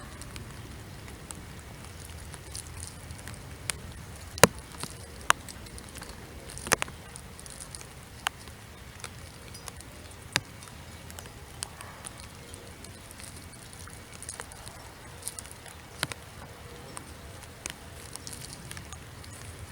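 Scattered drops of a soft rain starting to fall, tapping irregularly on nearby surfaces over a faint steady hiss, a few drops sharper and louder than the rest.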